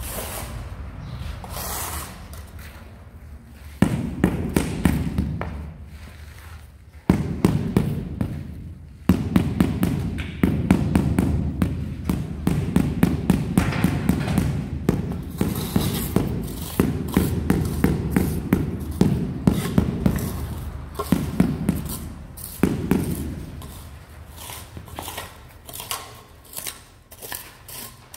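Rubber mallet tapping a large ceramic floor tile down into its mortar bed, in quick runs of dull taps with short breaks between them.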